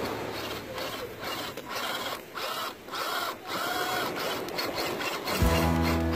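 RC rock crawler's electric motor and gear train whining in short rising-and-falling spurts as the throttle is worked, its tyres churning through loose sand. Guitar music comes in near the end.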